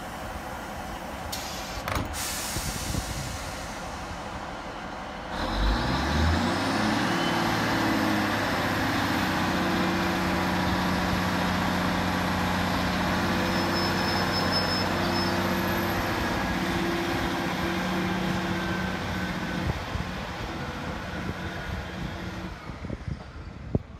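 Class 153 diesel railcar pulling away: a brief air hiss about two seconds in, then about five seconds in its underfloor Cummins diesel engine opens up, its pitch climbing for a few seconds and then holding steady with a faint high whine as the unit accelerates, dropping away near the end as it draws off.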